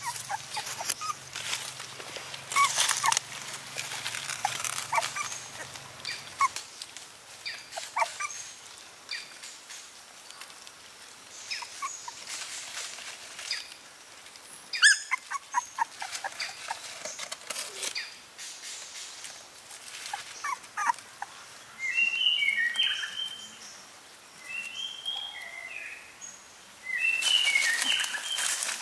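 Young puppies whimpering in short, high-pitched cries, coming thick and fast in the last third, with leaf litter rustling and clicking as they are handled.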